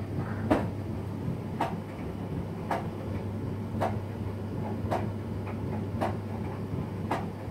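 Regular sharp ticks, about one a second, over a steady low hum.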